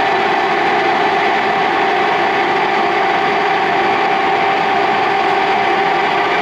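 1981 Clausing Colchester 8054 geared-head engine lathe running under power: a steady, even mechanical whir with a constant whine from the headstock gearing.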